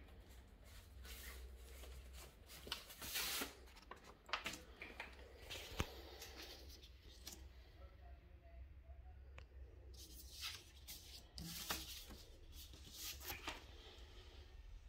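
Faint handling noise: scattered light clicks and rustles over a low steady hum.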